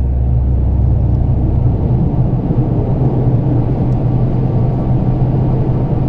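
A car cruising at a steady speed, heard inside the cabin: an even, low engine drone with road rumble.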